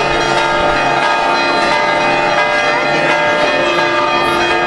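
Church bells ringing in a continuous festive peal, many bell tones sounding together, for a saint's feast-day procession.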